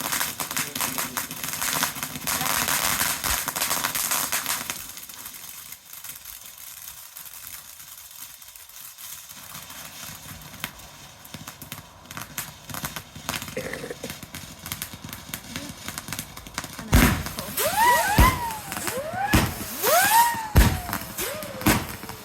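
Fireworks going off: a dense crackling for the first four seconds or so, then scattered pops. From about three-quarters of the way in comes a run of whistling fireworks, each a short whistle that rises then falls, with sharp bangs about once a second.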